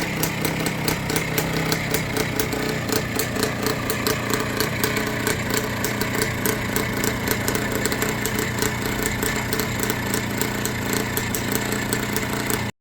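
Minsk 125's single-cylinder two-stroke engine running steadily, with a quick, even exhaust beat. The sound cuts off suddenly near the end.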